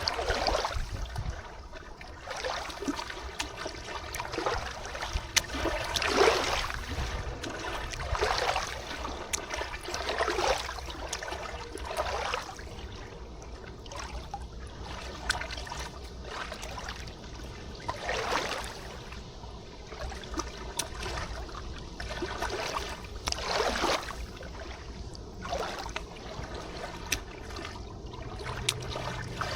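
River water trickling and lapping, rising and falling in irregular surges every second or two, over a steady low rumble.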